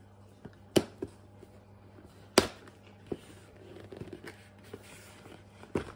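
Scissors snipping through the tape on a cardboard toy box: a few sharp, irregular snips and clicks, the loudest a little over two seconds in, with faint scraping of the blades and cardboard between them.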